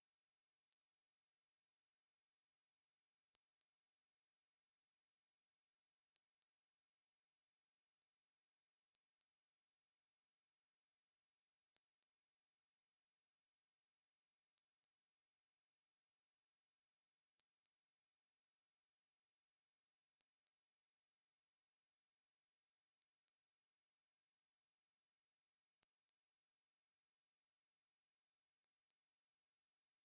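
Hummingbird giving a long series of short, high chip calls, about two a second and unevenly spaced.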